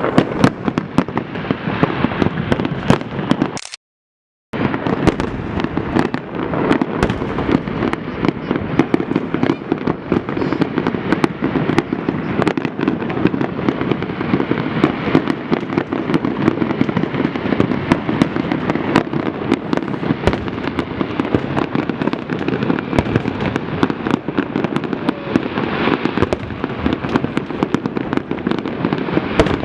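Fireworks display: a dense, continuous barrage of bursting shells and crackling. The sound cuts out completely for under a second about four seconds in.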